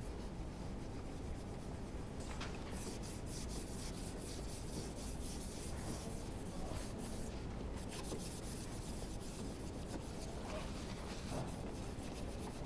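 Quiet rubbing and scraping of hands working over the bare deck and cylinder bores of a Honda RA100E V10 engine block, in two long stretches with a short break between them.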